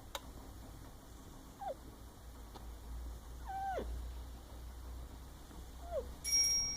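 A sleeping pet squeaking and whimpering in its sleep while dreaming: short squeaks that drop in pitch, three of them, the middle one longer and held before it falls. Near the end comes a short, loud high steady tone.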